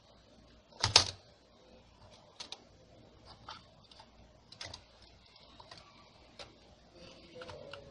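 Clicks and clacks of hardware being handled while a CPU is fitted into a Dell PowerEdge R720 server: a loud double click about a second in, then scattered lighter ticks.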